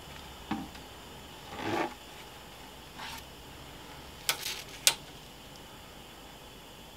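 Oil draining from a milling machine head in a thin stream into a plastic jug held under the sump plug, with a few brief knocks and rubs of the jug being handled and two sharp clicks about four and a half seconds in, the second the loudest.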